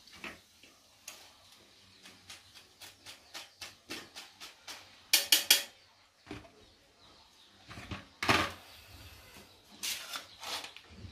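Cooking utensils clicking and knocking against a pan and dishes while frying sweet potatoes are turned: a run of light clicks, a loud cluster of three knocks about five seconds in, and a louder clatter a little after eight seconds.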